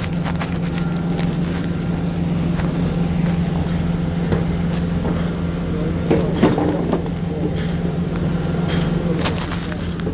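Steady drone of a large engine running at constant speed, a deep even hum, with scattered sharp metal knocks and clanks from work on rig fittings, the loudest about six and a half seconds in.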